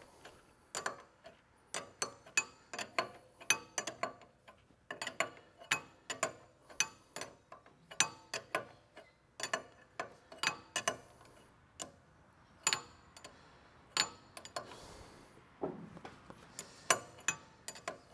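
Wrench clicking and clinking on metal hydraulic fittings as they are worked tight: a run of sharp, irregular metallic clicks, a few each second, some in quick clusters.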